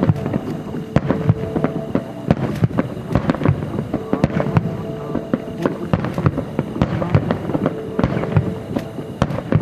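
Aerial fireworks bursting in rapid succession, a dense stream of sharp bangs and crackles several times a second, over music playing through loudspeakers.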